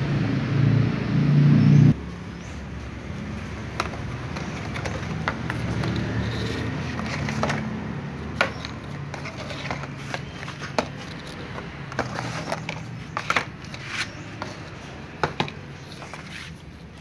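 A low engine rumble, like a passing motor vehicle, for the first two seconds, then cuts off. After that come scattered light clicks and taps: plastic food trays knocking on a wooden table as cats gather and eat.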